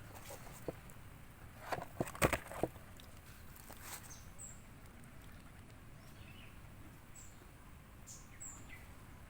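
Small birds chirping in the background, short high notes that drop in pitch, repeating every second or two. About two seconds in, a quick cluster of sharp clicks and knocks is the loudest sound.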